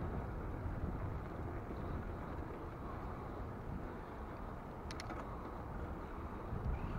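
Wind rumbling on an action camera's built-in microphone during a bicycle ride, with bicycle tyres rolling over brick paving. A few sharp clicks come close together about five seconds in.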